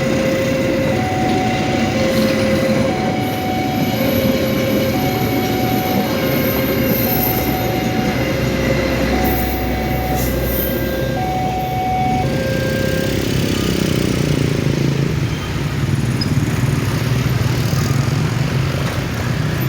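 Train running past with a steady rumble, while a two-tone warning signal alternates low and high about once a second; the signal stops about 13 seconds in, leaving a steady low hum.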